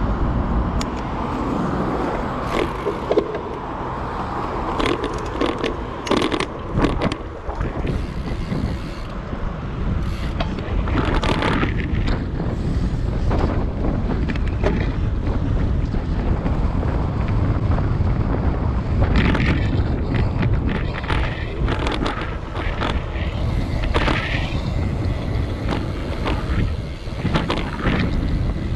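Street noise from a moving bicycle: a steady rumble of wind on the microphone and tyres on the road, with passing traffic and frequent sharp clicks and rattles from bumps in the pavement.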